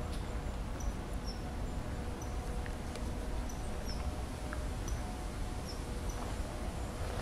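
Short, high bird calls, each a quick falling note, repeated every second or so over a steady low background rumble.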